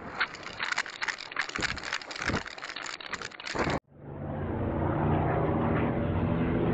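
Irregular clicks and rustling, then, after a sudden cut about four seconds in, the steady hum of the E-flite Twin Otter model's twin electric motors and propellers, its pitch creeping slightly upward.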